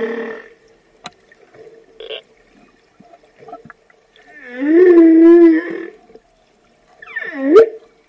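Humpback whale song: a moan trailing off at the start, then a quiet gap with a few faint clicks. A long, wavering moan comes about four seconds in, and a quick swooping call near the end.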